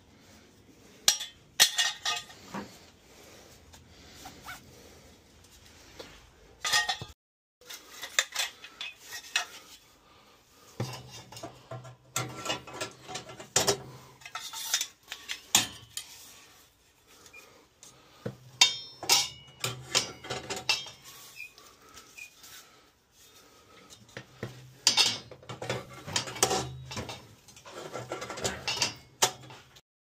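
Irregular metallic clinks, knocks and scrapes as the tubular steel burners of a gas-fired steam boiler are handled and set in place, along with tools being picked up and put down.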